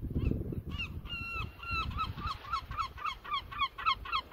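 A gull's long call: a few drawn-out notes, then a fast run of short repeated yelps, about five a second, over a low rumble.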